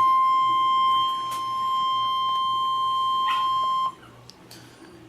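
NOAA Weather Radio warning alert tone: one steady, loud tone of about 1050 Hz that signals a tornado warning. It cuts off suddenly about four seconds in, leaving only faint background noise.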